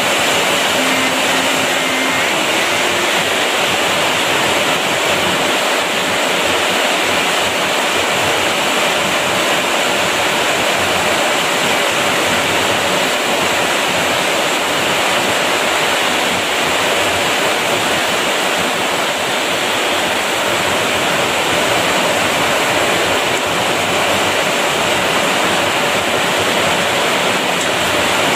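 Heavy tropical downpour: a loud, steady, even rush of rain that does not let up.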